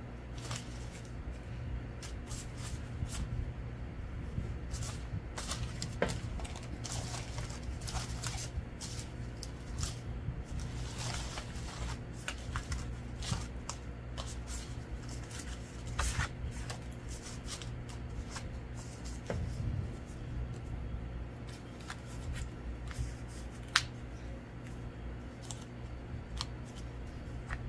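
Paper cutouts and card stock being handled and laid down: scattered rustles, light taps and slides of paper throughout, busiest in the middle, over a steady low hum.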